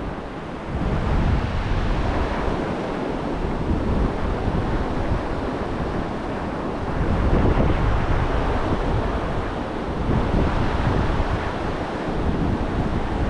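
Gulf surf washing on the beach, with wind buffeting the microphone in a low rumble; the sound swells and eases slowly as waves come in.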